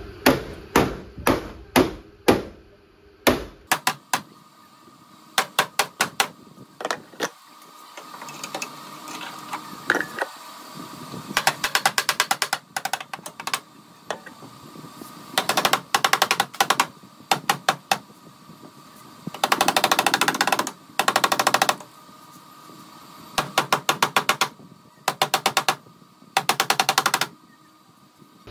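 Stick welder arc crackling in short bursts of one to two seconds with pauses between, tack-welding steel sheet. It is preceded by a few separate sharp clicks.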